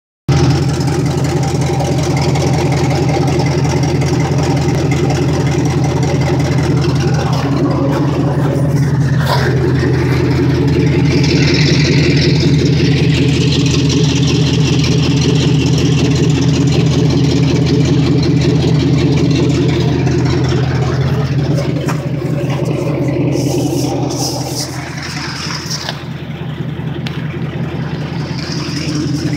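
2001 GMC 3500 pickup engine idling through a loud exhaust: a steady, evenly pulsing low exhaust note. It gets somewhat quieter about three-quarters of the way through, then louder again near the end.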